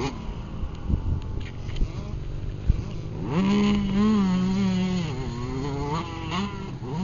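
Motocross bike engine revving: a low, rough engine note for the first few seconds, then the pitch climbs steeply about three seconds in and holds high for about two seconds under throttle, falls back, and rises again near the end.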